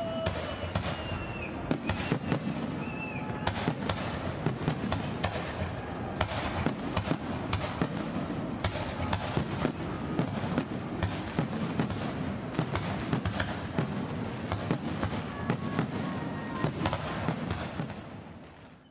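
Fireworks display: many sharp bangs and crackles in quick, irregular succession over a continuous rumble, with a few whistling glides near the start. The sound fades out near the end.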